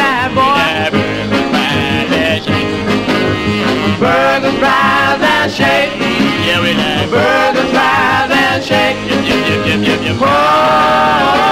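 A doo-wop single from a 45 rpm record playing: a band with a steady beat and singing.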